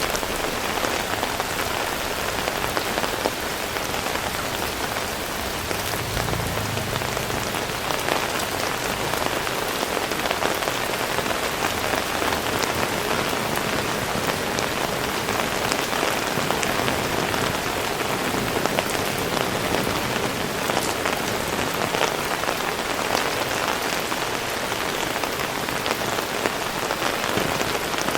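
Heavy rain falling steadily, with a brief low thump about six seconds in.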